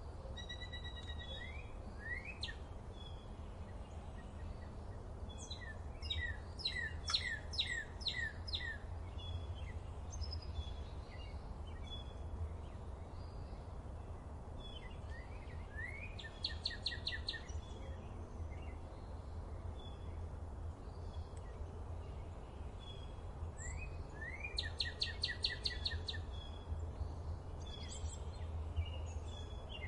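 Wild songbirds singing outdoors: three song phrases about eight seconds apart, each a few quick sweeping notes and then a fast trill, with short chirps between, over a steady low rumble.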